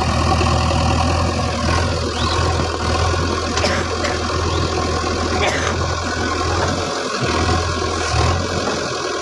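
Heavy diesel engine of a tractor or backhoe-type machine running steadily, with a strong low hum that dips briefly about seven seconds in.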